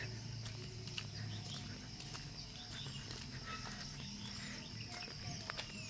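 Rural outdoor ambience: a steady high insect drone with occasional short bird chirps and faint clicks.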